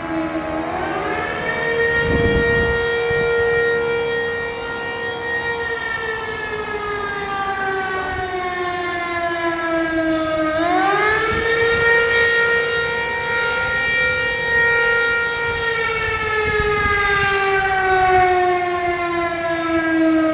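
Air-raid warning siren wailing. Its pitch rises quickly, holds high for about four seconds, then slowly falls, and the cycle starts again about ten seconds in.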